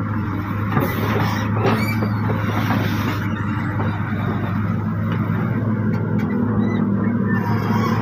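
Backhoe's diesel engine running steadily with a low hum while the bucket shoves a felled coconut palm trunk.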